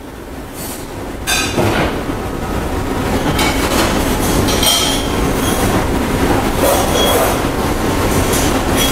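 A loud, steady mechanical rumble that builds up over the first two seconds, with brief high squeals and a few metallic clinks over it.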